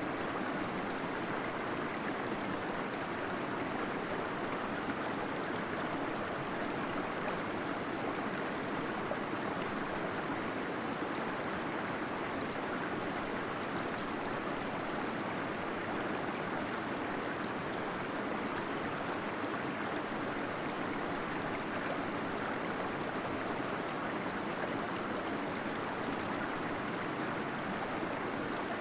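Small waterfall inside a cave, water flowing and splashing in a steady rush with a gurgle.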